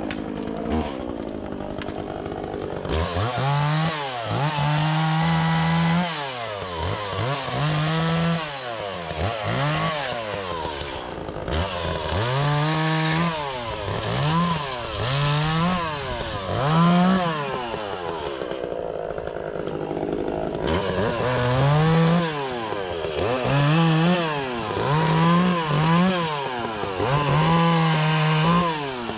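Echo CS-400 two-stroke chainsaw cutting logs into lengths. The engine is throttled up to full speed in repeated bursts of a second or a few seconds, then drops back between them.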